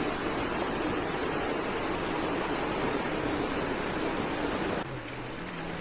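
Fast-flowing floodwater rushing steadily, slightly quieter from about five seconds in.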